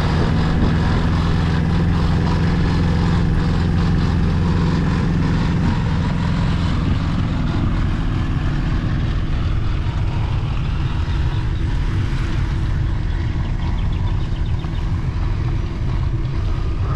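Wind rushing over the microphone of a camera carried on a moving bicycle, a steady loud buffeting with a heavy low rumble.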